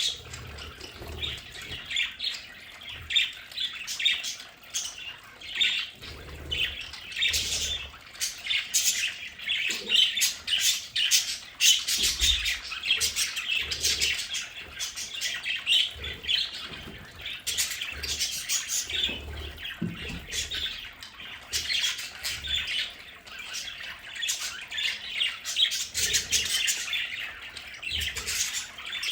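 A flock of budgerigars chattering steadily: many short overlapping chirps, warbles and squawks, with occasional soft low thumps.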